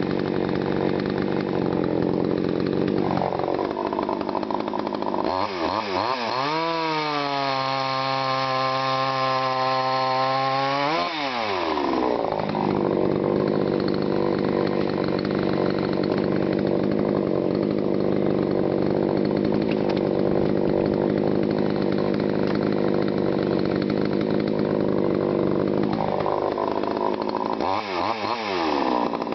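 TimberPro CS-6150 62 cc two-stroke chainsaw running hard while bucking dense honey locust. Its engine note climbs to a high steady pitch for several seconds, falls back to a lower steady note, and climbs again near the end.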